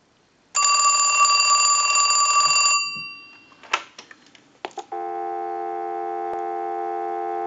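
Western Electric rotary Trimline telephone's bell rings once for about two seconds on a ring signal from a test analyzer, then dies away. A few clicks follow as the handset comes off the hook, and a steady dial tone starts about five seconds in, heard through an amplified pickup on the receiver.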